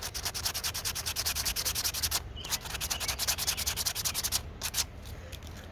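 Quick, rapid back-and-forth rubbing strokes on a sugar pine carving, about ten a second. They come in two runs with a short break about two seconds in, then a couple of last strokes near the end.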